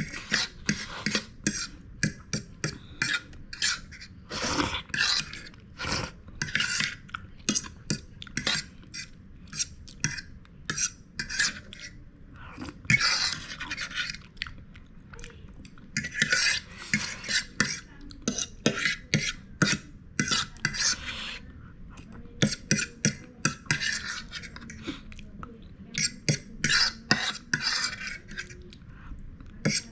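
Cutlery clinking and scraping against a dish of noodles while eating, in many short, irregular clicks and scrapes.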